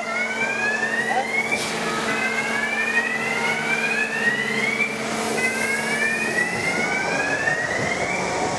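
Siren-like whoops, each one rising in pitch, repeating about every one and a half seconds with two overlapping at a time, over the steady background noise of an indoor roller coaster station.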